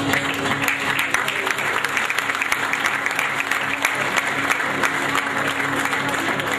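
Audience applauding, dense steady clapping, over background music.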